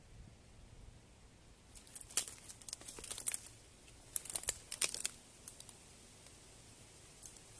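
Faint crackling rustle of dry fallen leaves and twigs, in irregular clusters of small crackles from about two seconds in to about five and a half seconds in, with a few more near the end.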